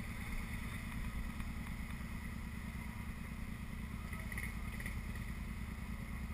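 ATV engines idling, a steady low rumble.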